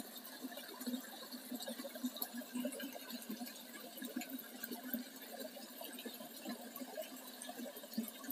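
A small stream of water splashing steadily over a rock ledge into a shallow pool.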